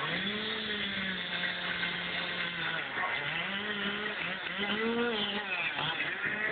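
Two-stroke chainsaw running at high revs while carving into a wooden log. Its engine pitch holds steady, dips about three seconds in, climbs again and drops near the end.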